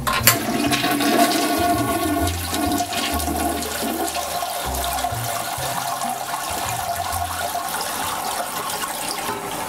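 Toilet flushing: a sudden rush of water that keeps running and swirling steadily, with a held tone riding above the rush.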